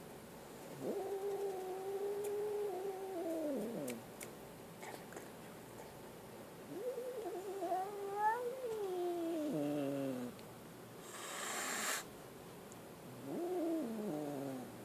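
A frightened kitten gives three long, drawn-out yowls. The first is held steady for about three seconds, then falls. The second rises and falls. The third, near the end, is shorter and falling. About eleven seconds in there is a brief hissing burst of about a second.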